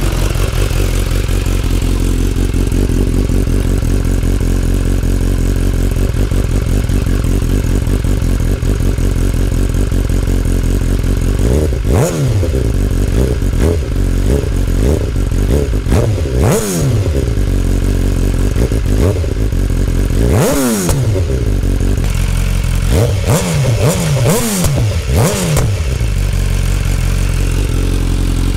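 2019 BMW S1000R's inline-four engine through an Akrapovic exhaust, idling steadily, then blipped repeatedly to high revs from about twelve seconds in. Each rev climbs and drops quickly, with a few sharp cracks among the blips, before it settles back to idle near the end.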